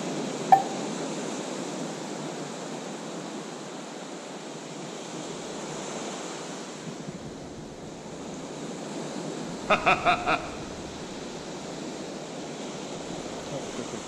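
Small surf breaking and washing up the sand, with wind buffeting the microphone. A single short pitched blip sounds about half a second in, and four quick pitched pips come close together about ten seconds in.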